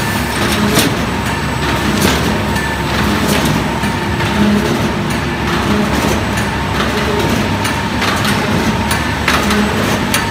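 Automatic folder gluer stitcher running: a steady mechanical drone and hum with frequent, irregular sharp clicks and clatter as corrugated cardboard blanks are fed through, folded and stacked.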